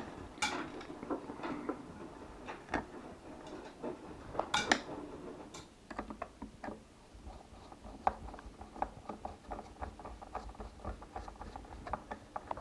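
Scattered light clicks, taps and scrapes of a plastic Bluetooth speaker casing being handled and unscrewed, with a couple of sharper knocks.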